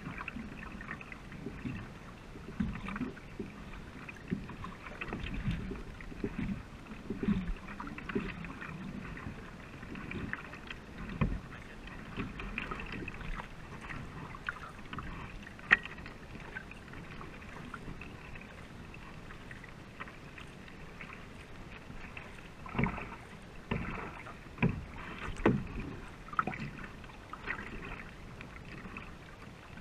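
A racing canoe being paddled at an easy pace: paddle blades pull and splash through the water and water rushes along the hull, with irregular sharp knocks and clicks.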